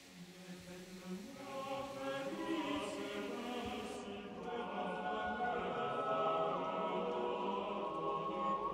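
Background music: a choir singing slow, sustained chords, growing louder over the first two seconds.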